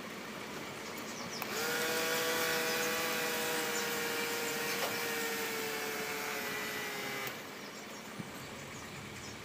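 Small DC hobby motor spinning a plastic propeller on a homemade air boat: a whine that rises quickly about a second and a half in, holds near one pitch while sinking slightly, and cuts off suddenly after about six seconds.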